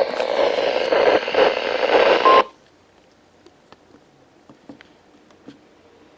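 Weather radio broadcast full of static hiss, its voice not intelligible. About two seconds in there is a brief beep, and the radio audio cuts off abruptly, leaving faint room noise with a few small clicks.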